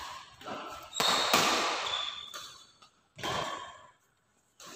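Badminton rackets striking the shuttlecock in a doubles rally: about four sharp smacks spaced unevenly a second or two apart, each ringing on in the hall's echo.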